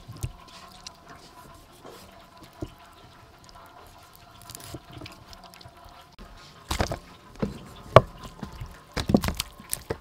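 Knife cutting raw chicken drumsticks on a wooden chopping board: soft wet slicing and faint taps, then a run of sharp knocks in the last few seconds.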